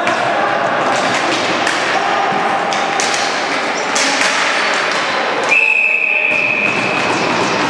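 Ball hockey in an indoor rink: sticks and the ball knocking and thudding on the concrete floor and the boards, with spectators' voices. About five and a half seconds in, a long, steady high note starts suddenly and holds for about two seconds.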